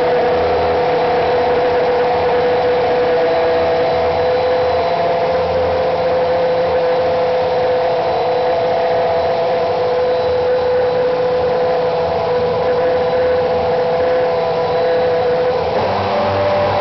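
Racing car engine just started and running at a steady speed, its note holding level; the note shifts slightly near the end.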